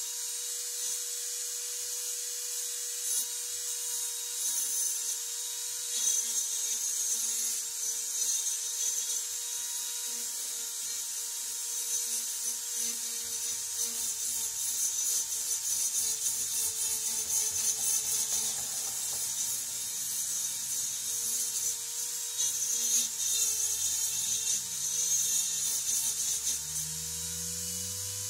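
Irregular scraping of a tool at work on metal, over a steady high hum.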